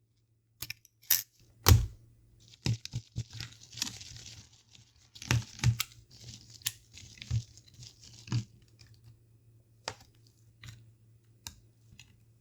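Hand disassembly of a Nintendo DSi XL's plastic shell and internal parts: irregular sharp clicks and knocks, with a stretch of light scratchy scraping and rustling in the middle.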